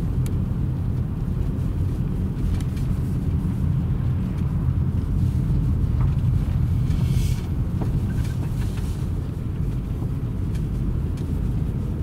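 Car in motion, heard from inside the cabin: a steady low rumble of engine and tyres on the road. There is a brief hiss about seven seconds in.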